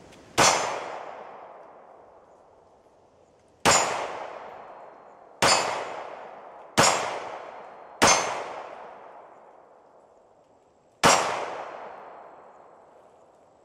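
Six pistol shots from a Glock 20 firing .40 S&W aluminum-case rounds through a conversion barrel, spaced unevenly over about eleven seconds. Each shot is a sharp crack that trails off in a long echo.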